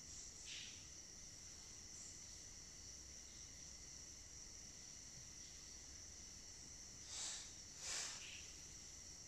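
Faint steady high-pitched whine, with a few short soft chick peeps from a huddle of sleeping Brahman chicks: one about half a second in and two close together near the end.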